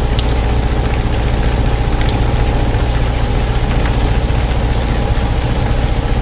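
Light aircraft's engine and propeller droning steadily, heard in the cabin, with a rain-like hiss and scattered faint ticks over it.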